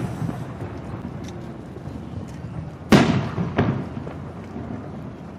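Aerial firework shells bursting: one loud boom about three seconds in, followed by a smaller one just over half a second later, each trailing off in a rumbling echo.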